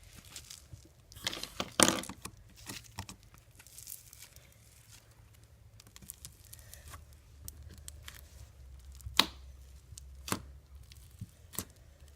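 Small foam beads being shaken out of a plastic container into slime: scattered crackling and rustling, loudest about a second or two in, with a few sharp clicks later on.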